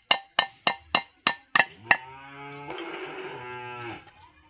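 Metal struck in a quick, even rhythm, about three ringing strikes a second, stopping about two seconds in. Then a steady, held horn-like tone with many overtones sounds for about two seconds and cuts off.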